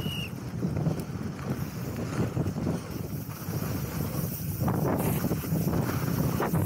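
Wind buffeting the action camera's microphone on a YT downhill mountain bike at speed, mixed with the tyres on loose dry dirt and the bike rattling over the bumps, with a few harder knocks about two-thirds of the way through.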